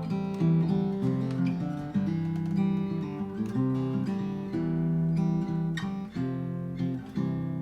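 Acoustic guitar playing the song's closing instrumental bars, picked notes and chords moving over a bass line, ending on a last chord struck near the end and left to ring out.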